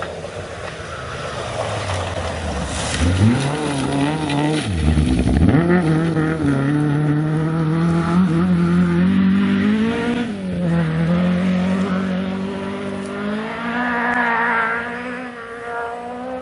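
Historic rally car's engine revving hard, the pitch climbing and then dropping sharply at gear changes about 5 and 10 seconds in, before it fades near the end.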